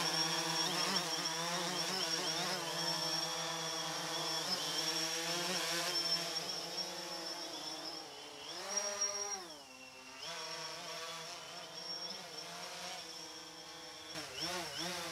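DJI Phantom 3 Standard quadcopter's four propellers buzzing in flight, the pitch wavering as the motors adjust. About nine seconds in the pitch briefly rises and falls, and the buzz is quieter in the second half as the drone moves farther away.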